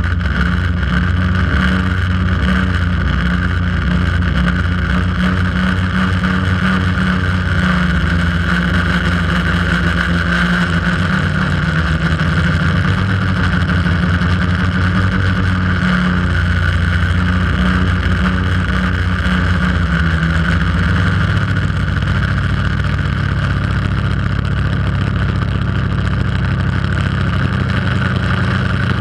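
Quadcopter's electric motors and propellers buzzing loudly and steadily, heard from the GoPro mounted on the drone itself. The pitch shifts now and then as the motors change speed while it flies.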